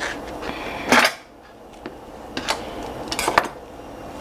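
Kitchen knife chopping zucchini on a cutting board: a few separate knocks of the blade on the board, the loudest about a second in and a quick cluster around three seconds in.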